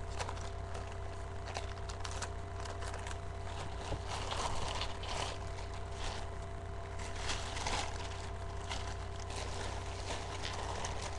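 A shopping bag rustling and crinkling as it is handled, in irregular crackly bouts, loudest about four and seven seconds in, over a steady low electrical hum.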